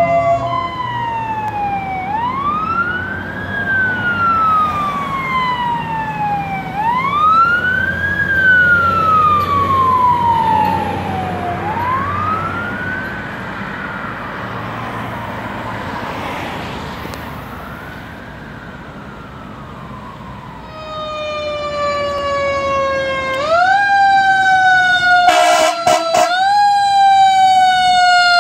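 Fire truck sirens wailing: first a siren sweeping slowly up and down, fading away over about twenty seconds, then a second, louder siren wailing in quicker sweeps as the next truck approaches, with a brief burst of noise near the end.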